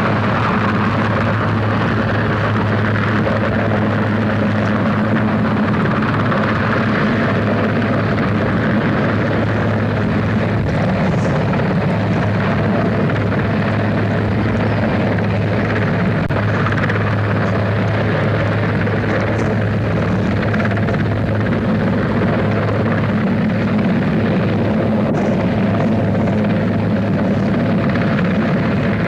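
Large helicopter hovering low, its rotor and engines making a steady, loud drone with a constant low hum.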